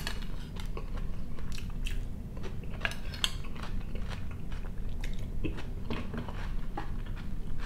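Close-miked chewing and mouth sounds of a person eating, with a metal spoon clicking now and then against a ceramic bowl as bites of tomato salad are scooped up.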